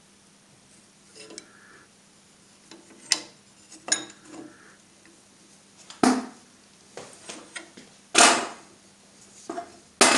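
Metal clanks and knocks as a cast-iron G-clamp is fitted and tightened onto a cracked aluminium starter motor end case on a steel bench. There are a handful of separate knocks; the loudest come about six and eight seconds in.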